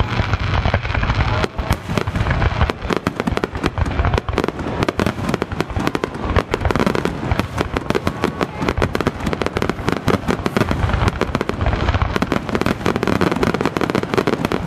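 Aerial fireworks bursting in a rapid, unbroken barrage, dozens of bangs and crackles overlapping during a festival finale.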